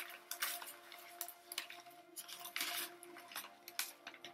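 Plastic packaging crinkling and rustling in short irregular bursts as bagged plant cuttings are handled and unwrapped, over a faint steady hum.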